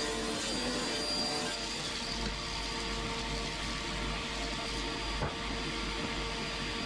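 Sliding table saw running steadily with its dust extraction, ripping a strip off an ash board, with a held whine over even noise. A single sharp click about five seconds in.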